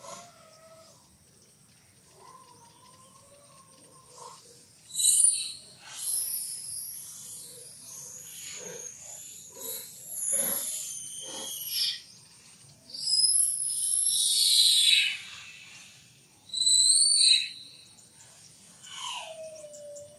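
Infant macaque crying: a few short wavering calls in the first seconds, then loud high-pitched screams in several bursts from about five seconds in, ending with one call that falls in pitch.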